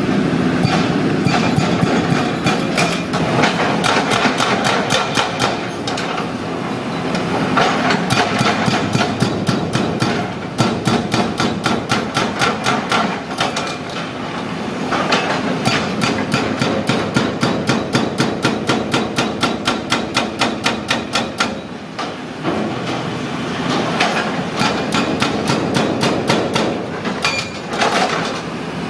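Excavator-mounted hydraulic breaker hammering concrete in rapid, evenly spaced blows, over the steady running of the excavator's diesel engine. The hammering comes in long runs with brief pauses between them as the breaker is repositioned.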